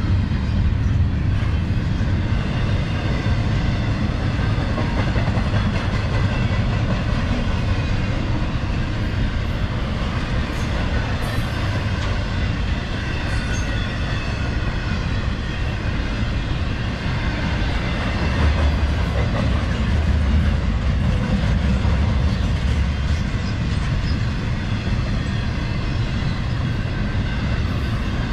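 CSX double-stack intermodal train's container well cars rolling past: a steady, unbroken rumble of steel wheels on the rails.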